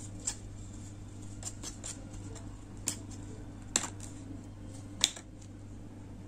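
Flat paintbrush stirring thinned glue varnish in a small metal cup, scraping softly with a few sharp clicks as the brush knocks against the metal. A steady low hum runs underneath.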